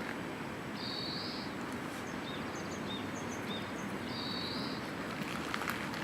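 Outdoor background noise with a small bird calling: two short high notes about three seconds apart, with a few soft chirps between them.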